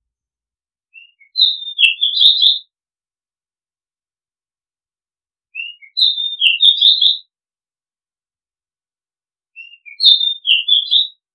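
Oriental magpie-robin singing the same short phrase three times, about four seconds apart: each phrase is a couple of soft introductory notes followed by a quick run of high notes.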